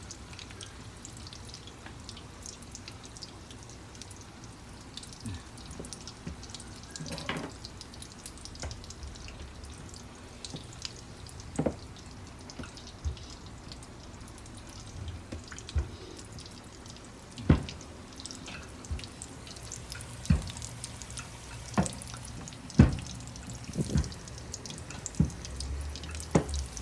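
Scattered light knocks and clicks of hands at work at a kitchen counter, filling samosa wrappers and rolling dough, over a steady low background hum; the knocks come more often and louder in the second half.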